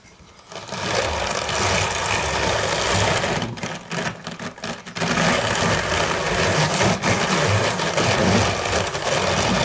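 Homemade hand-cranked drum carder turning, its two wire-toothed drums driven round by a belt and pulleys, with a steady mechanical running noise. The noise starts about half a second in and breaks into a short run of clicks about three and a half seconds in before running steadily again.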